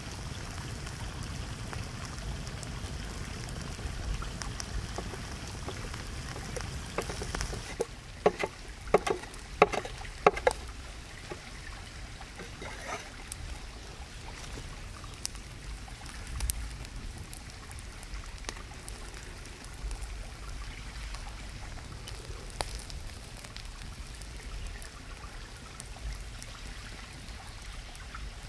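Wood fire crackling over a steady low rush, with a quick run of about six sharp knocks about eight to ten seconds in.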